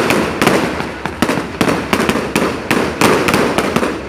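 Aerial fireworks bursting overhead in rapid succession: sharp bangs several times a second, with crackling from the bursting stars in between.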